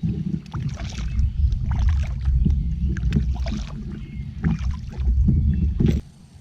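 Kayak paddle strokes splashing in the water, repeated every second or so over a steady low rumble. It all stops abruptly near the end.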